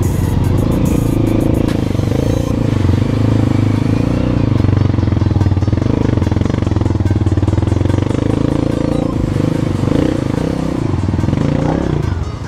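Single-cylinder four-stroke trail motorcycle engine running steadily under way.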